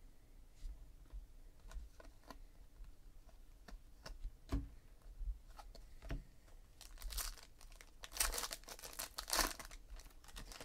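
Light clicks and taps of trading cards being handled, then, from about seven seconds in, the foil wrapper of a Panini Contenders Draft Picks football pack crinkling and tearing as it is opened.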